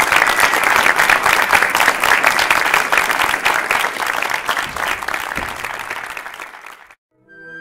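Audience applauding, the clapping thinning out and dying away near the end. Just before the end, a flute choir begins playing.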